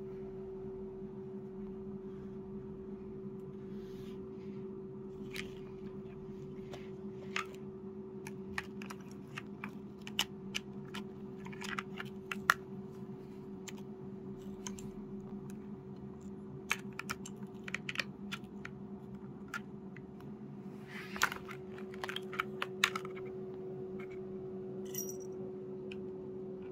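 Irregular light clicks and taps of a feather wand toy and a cat's paws knocking against a plastic ball-track cat toy, in quick clusters near the middle and again toward the end, over a steady low hum.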